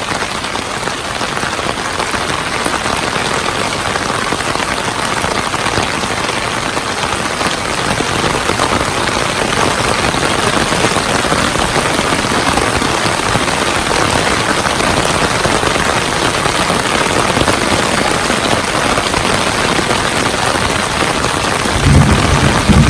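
Heavy downpour of rain hitting surfaces, a steady dense hiss that slowly grows louder. Near the end a low rumble sets in and becomes the loudest sound.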